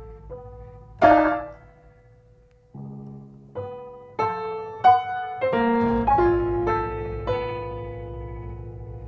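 Grand piano played in separate notes and chords: a loud struck chord about a second in that rings and fades, a short near-silent pause, then a low chord and a run of single notes and chords.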